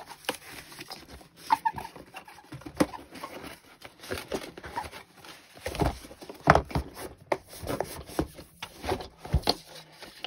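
Boxed items and packaging being slid out of a cardboard box and handled: irregular rustles, scrapes and light knocks.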